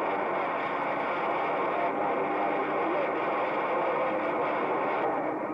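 President HR2510 transceiver's speaker receiving a crowded CB skip channel on 27.085 MHz: a steady wash of static with overlapping, distorted distant voices that can't be made out.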